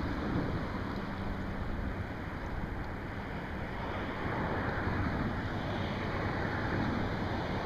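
Wind rushing over the microphone and water lapping around a small fishing boat, a steady rumbling noise, with a faint low hum underneath at times.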